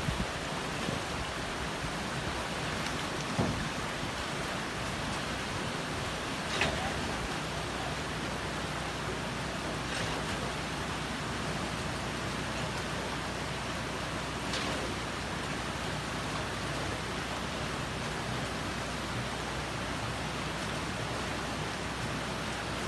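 Steady rushing of shallow river water flowing over the gravel, with a few brief splashes standing out from it.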